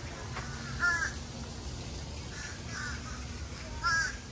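Crows calling: a series of short caws, about five, the loudest about a second in and again near the end.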